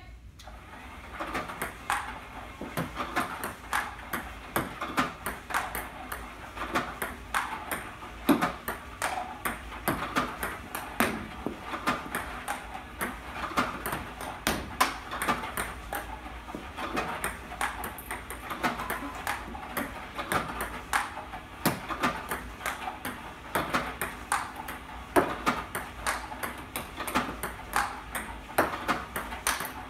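Table tennis balls clicking in a fast, continuous stream, several a second: an iPong Pro robot firing balls that bounce on the table and are hit back forehand with a Stiga Pure Color Advance paddle, with loose balls bouncing off.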